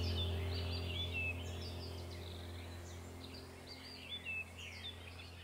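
Small birds chirping in many short, quick calls over a low held music chord that slowly fades out.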